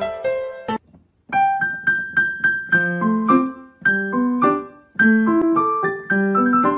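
Background piano music: struck notes ringing and fading, a brief silence about a second in, then a new melody over lower accompanying notes.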